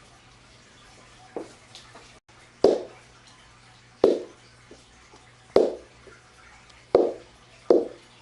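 Rubber bouncy ball bouncing on a hard floor: six sharp, hollow knocks about a second and a half apart, the last two closer together.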